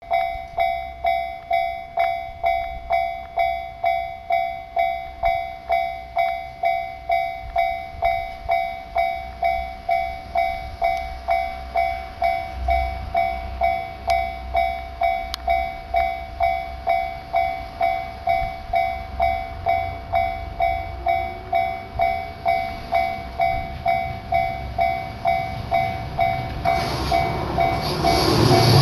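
Japanese railway level-crossing warning bell ringing steadily about twice a second. Near the end an approaching train's running noise rises over the bell.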